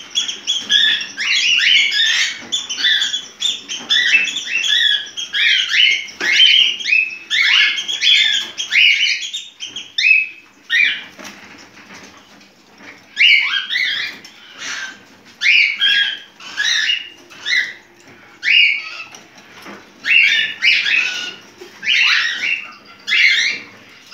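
Cockatiel in breeding condition calling: a rapid, dense run of short sharp chirps, with a lull of a couple of seconds about ten seconds in before the calling picks up again.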